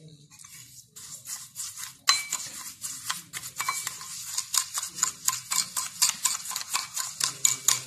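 A metal spoon beating instant coffee, sugar and a little warm water into a paste in a bowl, scraping and clinking against the bowl in rapid repeated strokes. It starts about a second in and gets faster and denser. This is the hand-whipping stage of making beaten coffee for cappuccino, with the sugar still dissolving.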